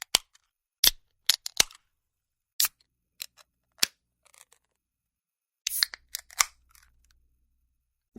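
A series of sharp, dry clicks, about a dozen at irregular intervals with silence between, bunched closer together near the end.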